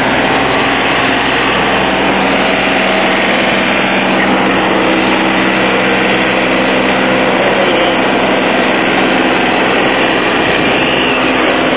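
Engine of a green John Deere compact tractor running steadily at a constant pitch as it tows a float slowly past.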